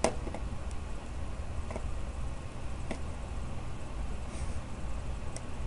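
Low steady hum of microphone and room noise, with a few faint isolated clicks.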